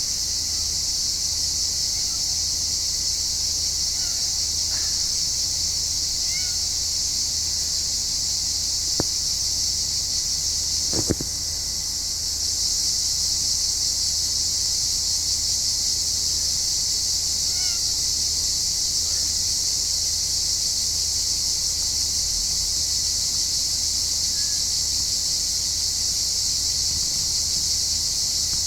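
Steady high-pitched insect chorus, with a few faint bird chirps over it and a single sharp knock about eleven seconds in.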